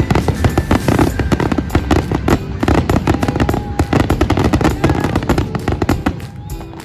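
Fireworks display: a dense, rapid barrage of bangs and crackles that eases off near the end.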